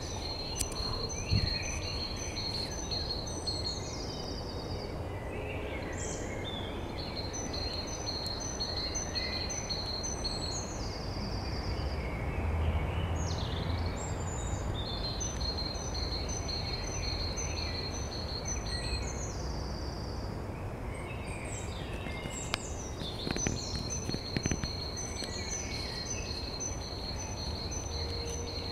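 Dawn birdsong in spring: one songbird repeats the same high song four times, each a run of evenly spaced notes about three to four seconds long ending in a short falling flourish, with other birds chirping around it over a steady low background rumble.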